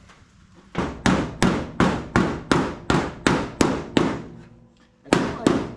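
Hammer blows on the sheet-metal front body panel of a 1979 Ford F250, knocking out a dent. A quick run of about ten strikes, roughly three a second, each ringing briefly, then a short pause and two more strikes near the end.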